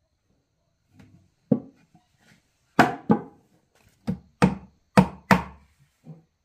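Hammer striking nails into the boards of a wooden box, about nine irregular blows, several falling in quick pairs.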